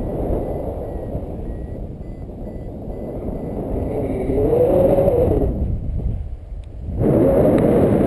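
Wind buffeting an action camera's microphone in flight under a tandem paraglider: a steady low rush with a wavering hum in it. It dips briefly and comes back abruptly louder about seven seconds in.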